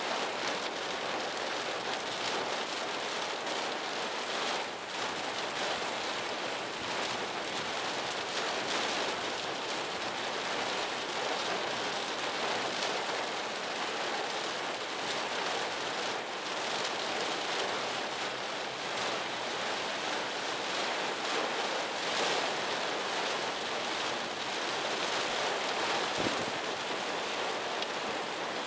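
Heavy thunderstorm rain pouring steadily, a dense even hiss that never lets up.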